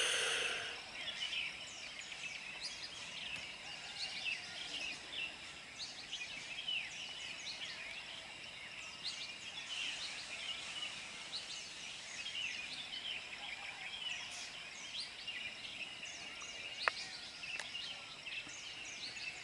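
Many small birds chirping and calling over a quiet open-air background, with a faint steady high tone through the middle and one short sharp click near the end.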